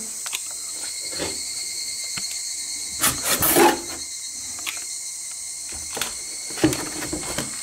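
Insects chirping steadily in a high, even chorus. Cardboard box flaps are handled and rustled, loudest about three seconds in, with a few short knocks near the end.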